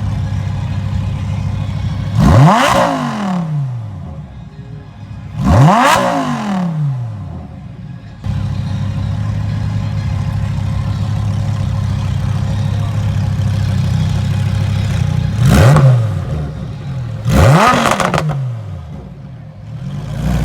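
A high-performance car engine idling steadily and revved four times with sharp throttle blips, each rising quickly in pitch and falling straight back to idle. The blips come in two pairs, the second pair about ten seconds after the first.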